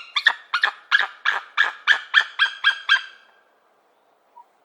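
Golden eagle calling: a quick series of high yelping notes, each sliding sharply down in pitch, about three or four a second. The calls stop about three seconds in.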